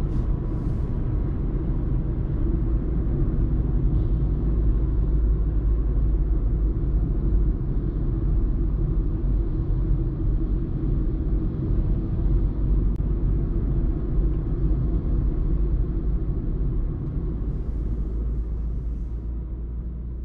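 Renault Clio IV with a 1.2 TCe turbocharged four-cylinder petrol engine cruising at steady highway speed: a steady low rumble of engine, tyres and road, easing off a little near the end.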